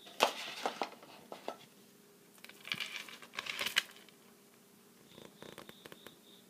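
Hard plastic action figures and loose parts being handled and rummaged through: a run of sharp clicks and clatters in the first second and a half, a crinkling rustle with more clicks around three seconds in, then a few faint clicks.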